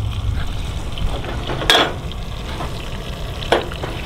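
Trout fillets frying in a saucepan on a camp stove, a steady sizzle, with two sharp clinks of metal cookware: one loud one a little before halfway and a smaller one near the end.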